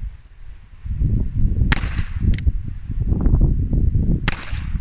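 Uberti Schofield .45 Colt single-action revolver fired twice, about two and a half seconds apart, with a shorter sharp crack soon after the first shot. Wind buffets the microphone between and under the shots.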